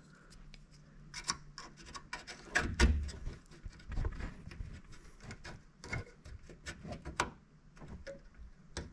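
Steel U-nut being handled and fitted onto a car body's sheet-metal edge: scattered small clicks and knocks at irregular intervals, the loudest about three seconds in.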